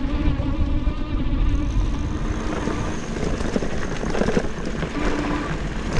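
Electric bike riding over a rocky dirt trail: a steady electric motor whine over a low rumble from the tyres and wind. Many short rattles and knocks come in from about halfway, as the bike jolts over rocks.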